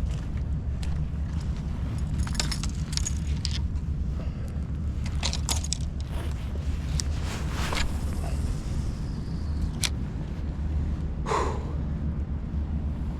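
Steady low wind rumble on the microphone, with scattered light clicks and jangling rattles of handled gear, and one brief louder sound near the end.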